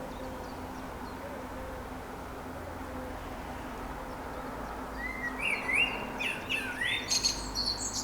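A songbird chirping in a quick run of short notes from about five seconds in, over a steady low background rumble.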